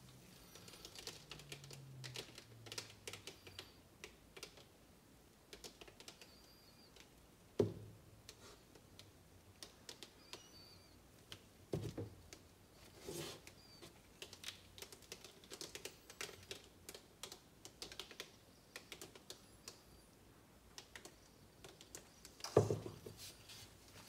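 Scattered light clicks and taps from handling and tilting a stretched canvas, with three duller knocks about 8, 12 and 23 seconds in as the canvas frame bumps down on the table.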